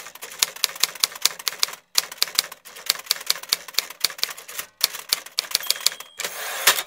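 Typewriter sound effect: rapid key clacks, several a second, in runs broken by short pauses, ending in a brief hiss.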